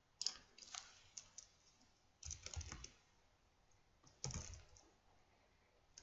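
Faint computer keyboard typing: a few scattered keystrokes, then two short runs of quick keystrokes about two seconds apart.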